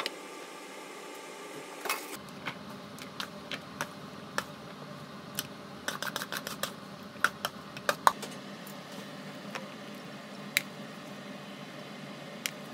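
Scattered light clicks and taps of metal tongs and a plastic container as sliced eggplant and cucumber salad is moved and served, with a busier run of clicks around the middle. A steady background hum runs underneath.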